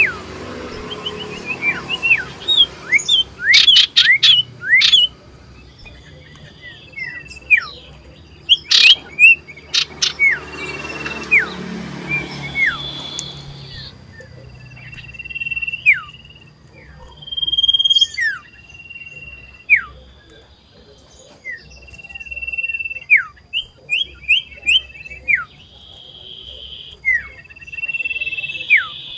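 Common iora (cipoh) singing loudly in full song: a long series of clear whistled notes, many held briefly and then dropping sharply in pitch, repeated every second or so. A few sharp clicks are heard in the first half.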